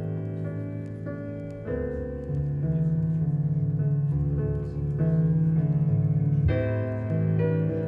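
Piano-led music with deep sustained bass notes, played back through a Gryphon high-end stereo amplifier and loudspeakers. A new chord comes in about two seconds in and again near the end.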